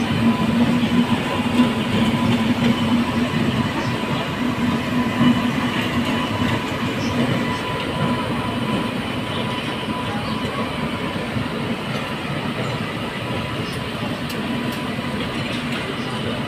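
Indian Railways WAP-7 electric locomotive hauling a passenger express past, with a steady rumble of wheels on rails as the coaches roll by. A low hum is strong at first and fades out about halfway through.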